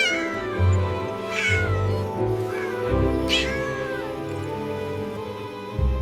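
A kitten meowing three times, each call sliding down in pitch, over steady background music.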